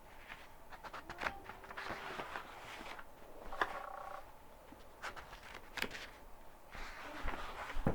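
Book pages being turned one after another: a series of short papery swishes and flaps, with a few brief faint tones in the background.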